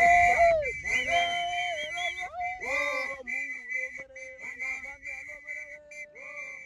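Group of men singing a chant with a shrill whistle blown over it. The whistle is held at first, then sounds in quick short blasts about three a second. The whole sound fades out at the end.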